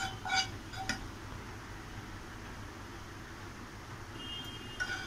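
A few short ringing clinks of a spoon against a white ceramic serving bowl as garlic tadka is spread over palak paneer: two or three in the first second and one more near the end, over a steady low kitchen hum.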